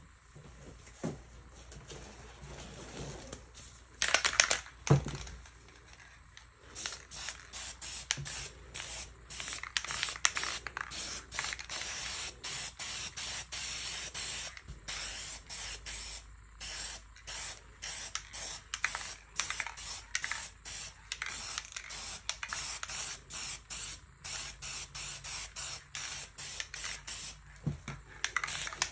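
Aerosol spray paint can hissing in many short bursts, the spray stopping and starting roughly once or twice a second. A louder burst of noise comes about four seconds in.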